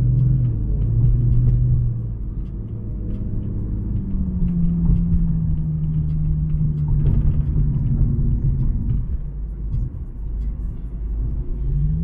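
Car engine and exhaust heard from inside a moving car in traffic: a low steady drone that rises in pitch about four seconds in, holds for several seconds, then eases off, with a brief swell near the end.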